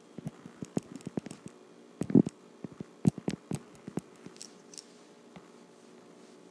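Stylus tapping on a tablet's glass screen while writing by hand: a run of irregular light taps and clicks, the loudest about two and three seconds in, thinning out after about four seconds.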